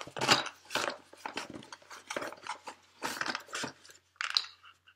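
Clear plastic bag around a cream whipper canister crinkling and rustling in short irregular bursts as the canister and its packaging are handled.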